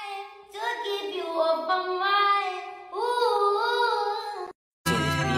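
A high singing voice on the clip's soundtrack, holding notes that bend up and down, cutting off about four and a half seconds in. After a brief gap, a different song with a heavy bass line starts.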